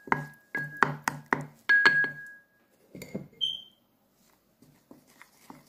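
Wooden spoon knocking against the side of a ceramic bowl while stirring a paste, the bowl ringing briefly with each knock; about six knocks in the first two seconds, then the stirring stops.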